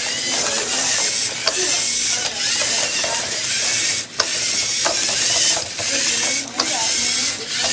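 Lego Mindstorms EV3 robots' electric motors and plastic gear trains whirring and grinding as the robots drive and shove each other, steady and loud with a few brief dips.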